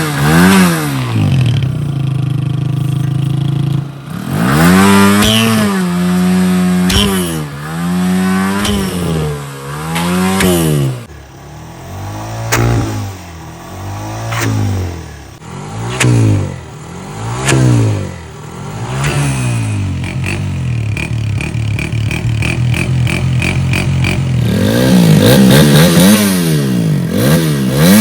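Motorcycle engine revved in repeated throttle blips: a run of rises and falls, then single short blips about every second and a half, settling to a steady idle around twenty seconds in, then quick revs again near the end.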